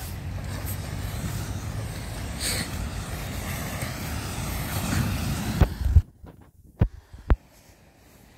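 Low, uneven rumble of wind buffeting the microphone, which cuts off suddenly about six seconds in, followed by two short thumps.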